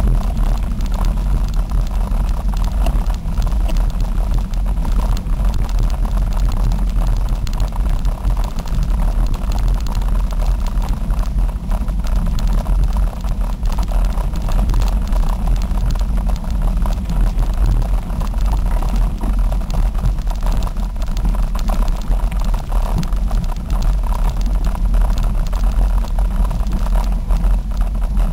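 Steady low rumble of wind buffeting the microphone of a camera riding along a gravel fire trail, mixed with the crunch and rattle of tyres on the dirt.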